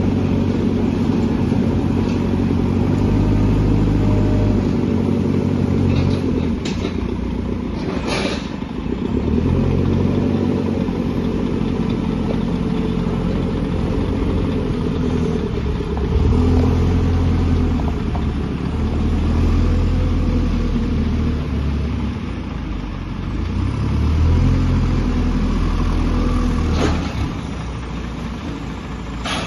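JCB 4CX backhoe loader's diesel engine working under load, revving up and dropping back several times, with a few sharp metallic knocks.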